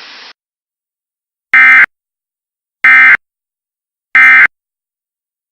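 Emergency Alert System end-of-message data bursts: three short, harsh digital buzzes of SAME code a little over a second apart, signalling the end of the alert.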